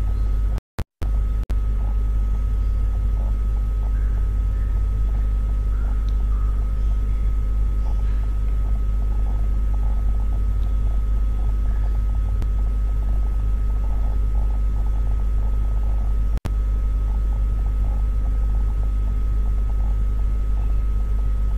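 Steady low hum with a faint, constant high-pitched tone above it. The sound drops out to silence briefly about a second in and again for an instant near the sixteen-second mark.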